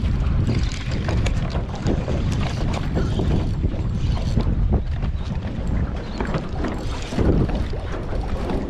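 Wind buffeting the microphone over a boat on open water, with a scatter of small clicks and knocks.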